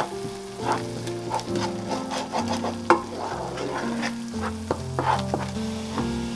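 A wooden spatula stirring and scraping a thick spiced paste around a nonstick frying pan, the paste sizzling as it fries, with a scrape at each stroke.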